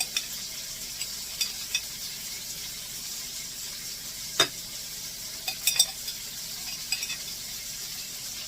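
Ground-pork patties sizzling steadily in a skillet, with scattered sharp clicks and one louder knock about four and a half seconds in.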